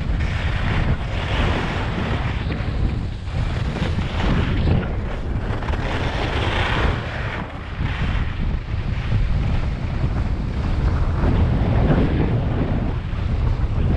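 Wind buffeting the microphone of a skier's action camera during a downhill run, with the hiss of skis sliding over packed snow swelling and fading every few seconds.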